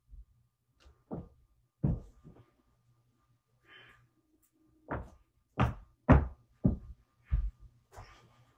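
Someone banging hard, a string of loud knocks: three in the first couple of seconds, then after a short pause about six more in quicker succession, the loudest about six seconds in.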